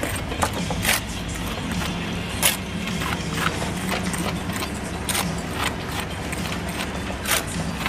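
Steel brick jointer scraped along fresh mortar joints in a brick wall, making short irregular scrapes and clicks, over a steady low hum.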